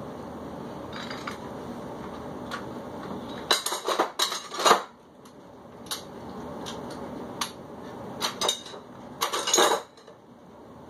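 Plate-loaded metal dumbbells clanking and clinking as they are handled and set down: a cluster of sharp metal clanks about four seconds in, another just before the end, and a few single clicks between.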